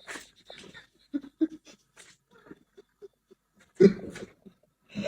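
A pet animal's short, scattered sounds, with a louder one about four seconds in.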